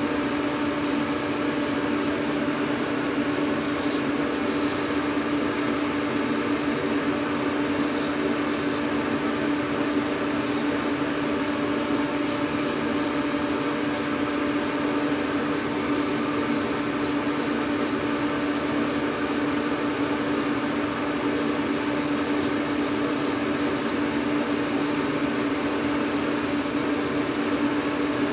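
Steady hum of a fan with one constant low tone, unchanging throughout. Faint short scrapes of a straight razor on stubble come and go over it.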